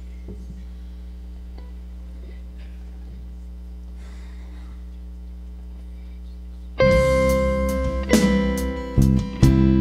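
A steady low hum for about seven seconds, then a worship band starts its song: strummed acoustic and electric guitars with bass guitar, the chords changing about once a second.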